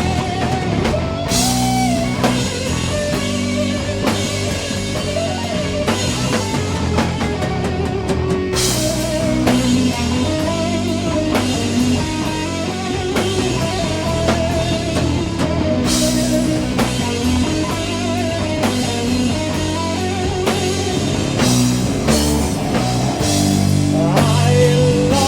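Doom metal band playing an instrumental passage: a lead guitar melody over rhythm guitar, bass and drums, with a cymbal crash every several seconds.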